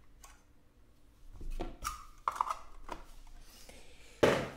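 Trading cards and a clear plastic case being handled: soft clicks and rustles, then a louder brief brush a little over four seconds in as the card stack is set down on the table.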